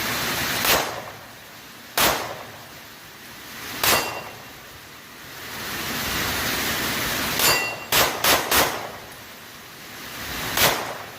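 Smith & Wesson Shield Plus pistol in .30 Super Carry being fired, about eight shots: three spaced single shots, then a quick string of four, then one more near the end.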